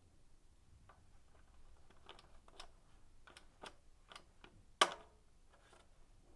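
Faint clicks and taps of small plastic parts being handled and pressed together on a tumble dryer's control panel, with one sharper snap about five seconds in.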